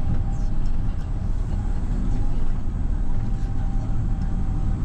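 Bus engine and road noise heard from inside the moving bus: a steady low rumble with a few faint clicks.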